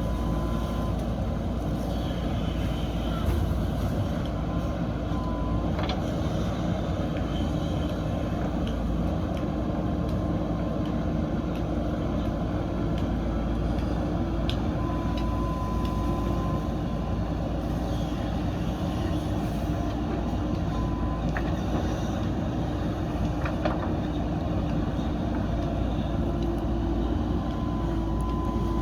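A JCB backhoe loader's diesel engine runs steadily while the machine works. A few sharp clanks stand out now and then.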